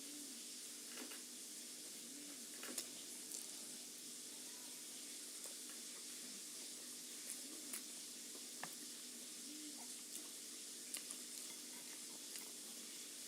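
Food frying in a pan: a steady sizzling hiss with scattered small pops and clicks.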